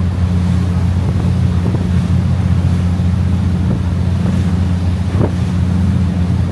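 A river sightseeing boat's engine running with a steady low drone, with wind on the microphone and water rushing past the hull.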